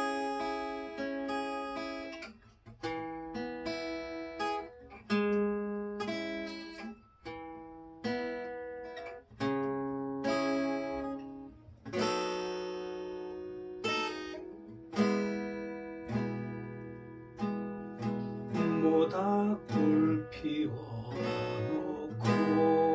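Acoustic guitar intro to the folk song: chords strummed about once a second, each left to ring and fade before the next.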